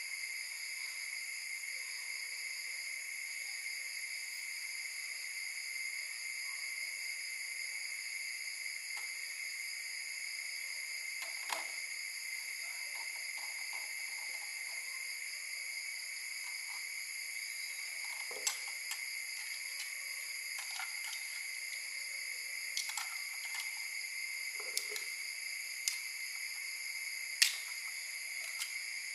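Steady high-pitched insect chorus, with a few scattered light knocks and taps, the sharpest one near the end.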